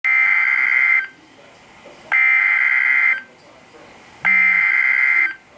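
Emergency Alert System SAME header: three bursts of data tones, each about a second long and about a second apart, the coded start of a severe thunderstorm warning broadcast.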